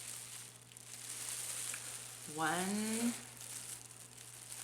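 Plastic wrapping and loose potting dirt crinkling and rustling as bare-root plants are handled. A little past halfway comes a short hum from the handler that rises in pitch.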